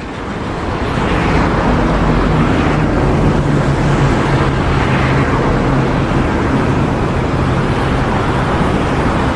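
An engine running steadily under a loud, even wash of noise, building up over the first second.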